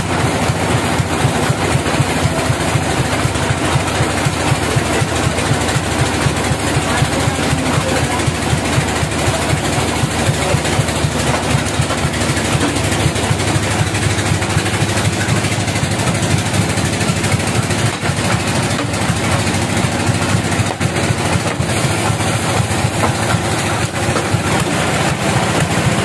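Sawmill's stationary engine running steadily, a low rumble that stays even throughout, driving the saw through V-belts and a large pulley.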